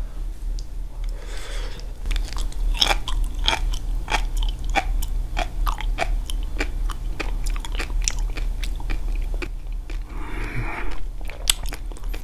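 Sea grapes (Caulerpa seaweed) chewed close to the microphone: a run of small crisp pops and crunches, a few a second.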